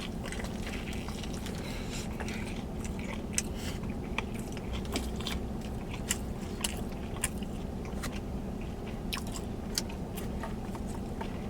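Close-up chewing of a mouthful of sushi burrito with fried shrimp: wet chewing with irregular crisp clicks and crunches, over a steady low hum.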